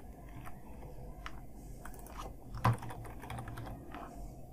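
Computer keyboard typing: scattered, unhurried keystrokes as code is edited, with one louder stroke a little past halfway.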